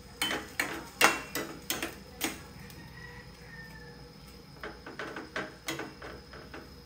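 A cooking utensil clacking and knocking against a pan as the sauce is stirred: a run of sharp knocks in the first couple of seconds, then lighter, quicker clicks near the end.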